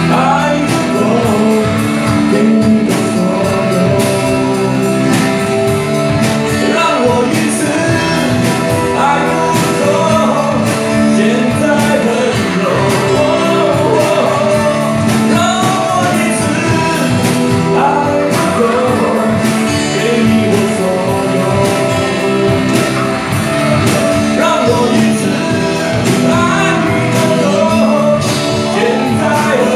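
Live rock band with male vocals singing a song, the singing and the band going on without a break.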